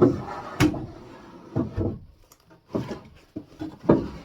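Kitchen unit drawers being pulled out: a series of wooden knocks and short sliding scrapes.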